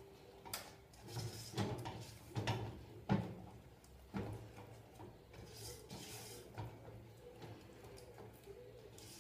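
A utensil scraping and knocking against the bottom and sides of a non-stick saucepan while chocolate sauce is stirred, in a string of short strokes that grow softer after about four seconds.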